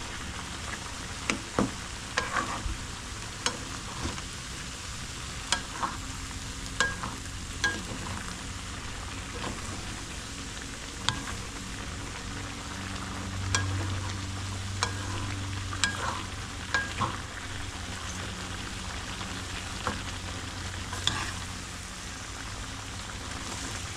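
Chicken pieces with spices, ginger, garlic and tomato sizzling in hot oil in a pan while being stirred, with sharp clicks of the spatula knocking the pan every second or two.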